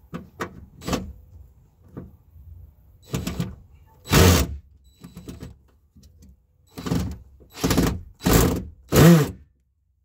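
DeWalt cordless drill/driver run in about ten short trigger bursts. The loudest comes about four seconds in, and four quick ones follow near the end.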